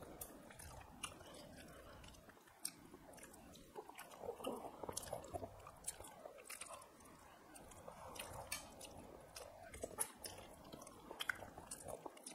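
Mouth sounds of people eating rice and fish curry by hand: chewing and lip smacking, with many short, irregular clicks.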